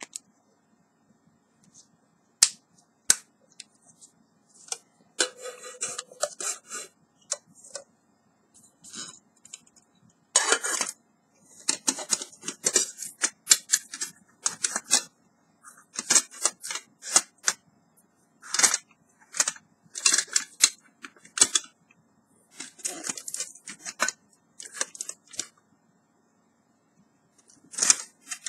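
Metal camping pots and lids of a mini cookset clinking, scraping and rattling as they are nested together and the lid is fitted, in irregular bursts with a few single sharp clicks.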